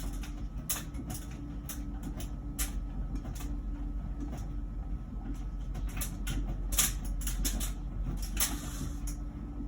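LG Wash Tower heat pump ventless dryer running mid-cycle: a steady low hum with a faint steady tone over it, and irregular light clicks and knocks from the tumbling drum.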